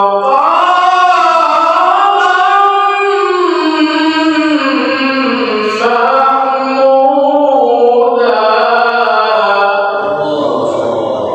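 A male qori reciting the Quran in melodic tilawah style: one long ornamented phrase, the voice sliding up and down and wavering on long held notes.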